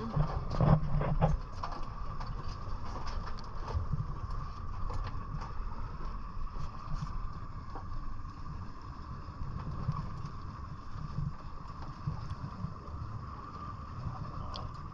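Wind buffeting the microphone on an open boat, over a steady low rumble. A cluster of knocks and clatter in the first second and a half comes from gear being handled on the deck.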